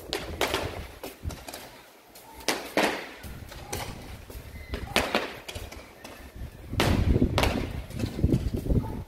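Small fireworks going off: sharp cracks and pops every second or two, the loudest about five and seven seconds in.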